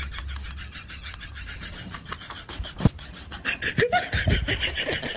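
Rhythmic breathy panting, with a single sharp click about three seconds in.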